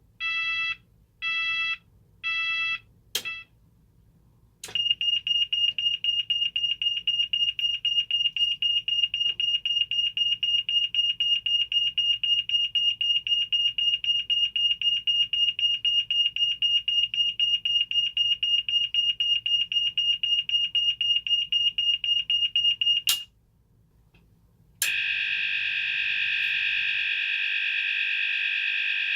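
Cooper MIN-T electronic fire alarm sounder cycling through its tones. A slow pulsed beep runs for the first few seconds, then a couple of sharp clicks, then a fast-pulsing high tone for about eighteen seconds. After a short break and another click, a steady continuous tone sounds near the end.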